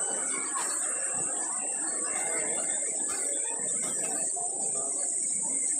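Steady high-pitched chirring of crickets, with a crowd's background chatter beneath.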